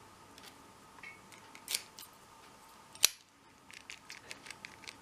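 Small metal clicks of a key being worked in a 40mm Abus My Sport padlock, with one sharp snap about three seconds in as the lock's mechanism releases or latches, followed by a run of light rapid clicks.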